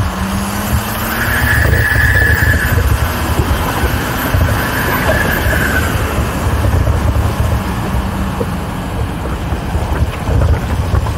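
Off-road vehicle driving over a dirt and gravel track, its engine running with a steady low rumble and a higher whine that comes and goes twice in the first half, with wind on the microphone.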